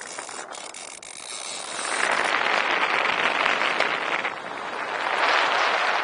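Air rushing past a paramotor pilot in a spiralling 360 descent, an even rushing noise that swells about two seconds in and again near the end.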